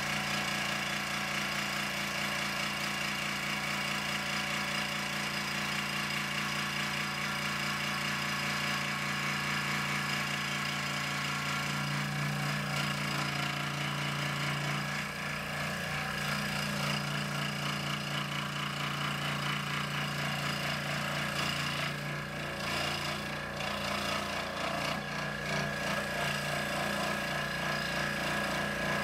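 A Delta 15-inch scroll saw running steadily, its reciprocating blade cutting through a thick pine block, with a constant motor hum under the sawing.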